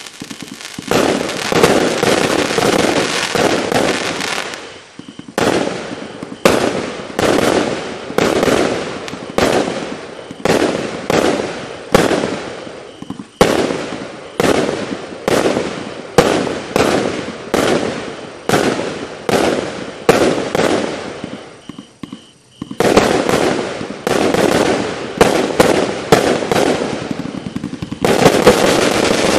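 JoHo Pyro 'Thunderstorm' firework cake firing a long run of loud shots, one about every half second, each cracking sharply and then dying away. After a brief lull about three quarters of the way through, the shots come faster and run together into a dense barrage near the end.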